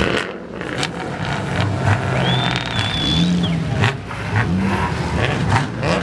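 Several race car engines idling and being blipped together, their notes rising and falling over one another, with a high-pitched whine for about a second midway through.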